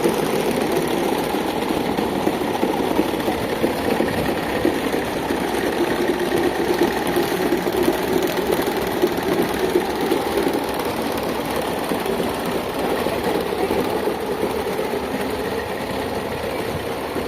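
Electric fan with a broken blade running, a steady, fast rattling vibration that eases slightly near the end.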